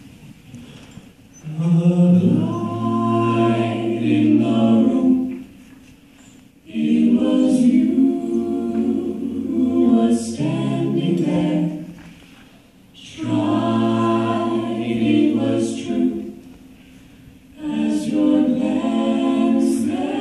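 Mixed five-voice a cappella group of three men and two women singing long held chords in close harmony into handheld microphones, in four phrases with short pauses between them, the first starting about a second and a half in.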